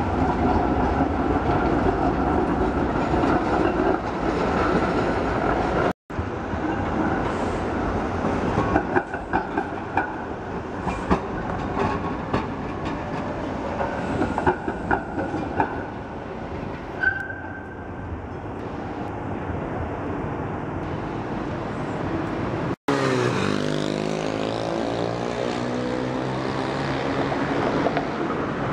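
Basel trams rolling past on street track: a Be 4/4 motor car with B4S and B4 trailers and a Be 4/6S articulated tram, wheels clicking and knocking over rail joints and points, with short spells of high wheel squeal. The sound cuts out abruptly twice where clips are joined.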